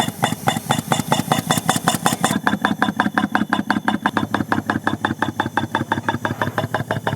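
A machine's engine running with a rapid, even beat of about six pulses a second.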